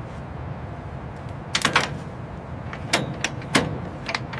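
Irregular sharp clicks and knocks, about six of them, over a steady low hum of workshop machinery.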